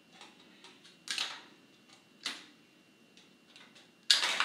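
Sharp clicks and snaps from wires being cut and connectors pulled off a receiver's circuit boards. There are a few faint ticks, two sharper snaps about one and two seconds in, and a louder, longer clatter near the end.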